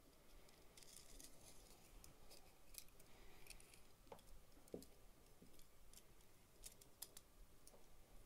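Near silence with faint, scattered light clicks and rustles: hands handling suture thread and a small plastic suture-anchor inserter.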